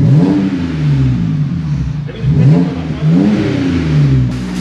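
BMW E92 325i's straight-six engine revved three times, the pitch rising and falling back each time, through its exhaust with the rear silencer removed, the cats left in.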